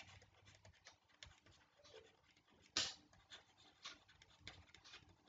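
Near silence: room tone with a person's faint breathing, and one short, sharper breath about three seconds in.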